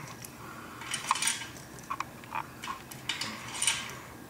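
Small plastic curtain-track parts (eyelets) clicking and clattering as they are picked up and fitted into the curtain track, in a few short bursts of sharp clicks.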